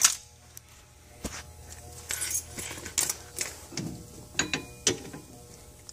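Light metallic clinks and taps of hand tools and sockets being handled, scattered irregularly over a faint steady low hum.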